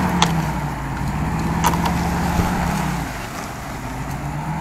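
UAZ Bukhanka van's engine running steadily while the van drags a log, then easing off about three seconds in. Two sharp clicks sound in the first two seconds.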